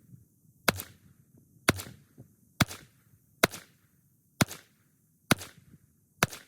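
Seven shots from a Ruger LCP II pocket pistol chambered in .22 LR, fired at a steady pace of about one a second, each a sharp crack.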